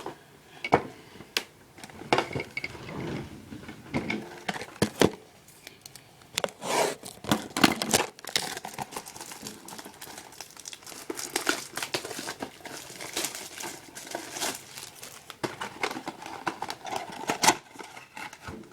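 Crinkling and tearing as a hockey card blaster box is ripped open: plastic wrap and cardboard handled in irregular crackles, rips and taps.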